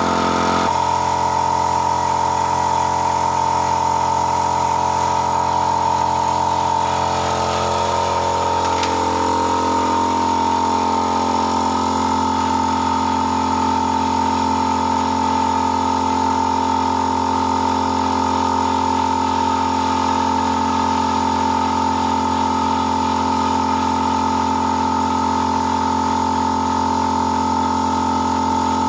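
A motor running steadily with a constant hum, its lower tones shifting slightly about eight seconds in.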